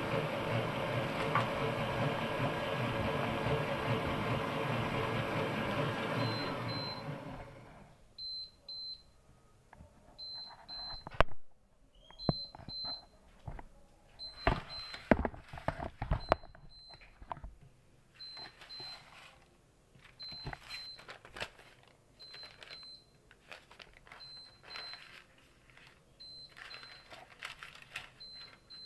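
Planetary stand mixer running steadily, then winding down and stopping about seven seconds in. After that an electronic beeper sounds a pair of short high beeps about every two seconds, over the clatter and knocks of tins and utensils being handled, with one sharp knock about eleven seconds in, and paper rustling near the end.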